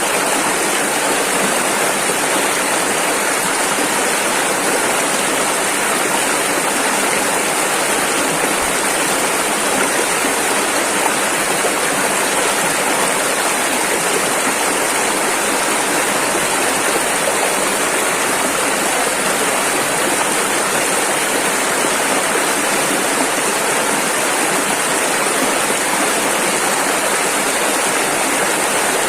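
Rushing river: fast water running over rapids in a steady, unbroken rush.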